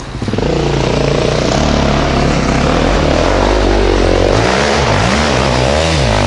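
Enduro motorcycle engine running at high revs as the bike climbs a steep dirt hill. From about four seconds in, the revs swing up and down several times as the rider works the throttle.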